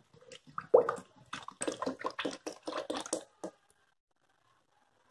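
Ethylene glycol pouring out of a plastic bottle into an empty plastic measuring jug: a quick, uneven run of gurgles and splashes that stops about three and a half seconds in.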